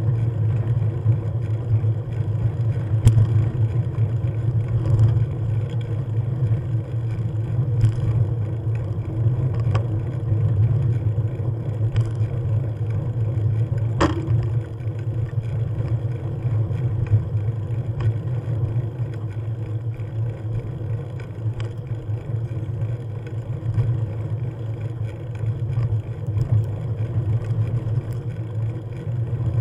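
Vehicle engine and running noise droning steadily while driving, with one sharp knock about halfway through as a wheel hits a pothole.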